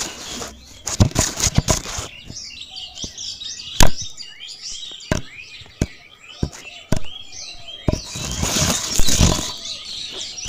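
Small birds chirping, mixed with sharp clicks and knocks of plastic toy parts being handled and set down on a miniature tractor trolley; the loudest knock comes about four seconds in, and a noisy rustle follows near the end.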